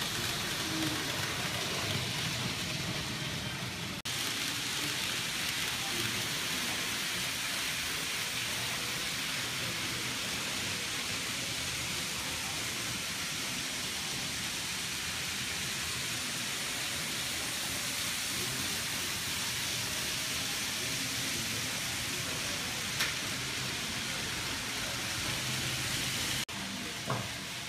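N-gauge model electric train running around a layout track: a steady whirring rolling hiss mixed with shop background noise. The sound changes abruptly about four seconds in and again near the end, and there is a single short click.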